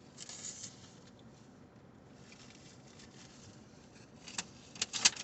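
Mostly quiet, with a soft rustle near the start and a few sharp crackles near the end: handling and eating takeout food, a chalupa in its wrapper.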